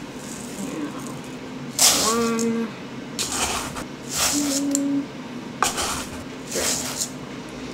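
Dry rice grains poured from a measuring cup into a strainer in a series of short pours, each a brief rattling hiss of falling grains.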